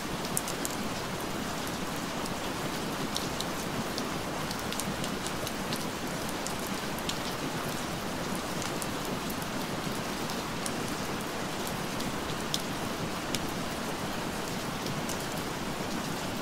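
Steady rain: an even hiss with scattered sharp ticks of individual drops.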